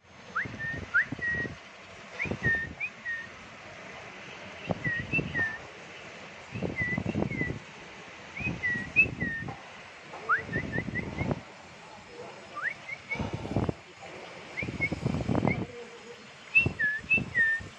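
Bulbul nestlings calling at the nest: short whistled chirps and quick upward-sweeping notes, repeated in scattered clusters. Low rumbling bursts come and go underneath.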